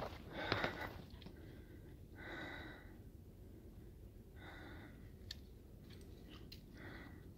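A person breathing hard, with a long breath about every two seconds: out of breath from a steep uphill climb. A few faint clicks come between the later breaths.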